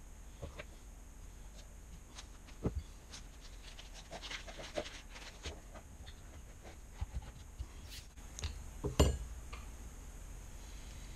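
Light clicks and taps from handling fly-tying materials and tools at the vise, with a sharper knock about nine seconds in.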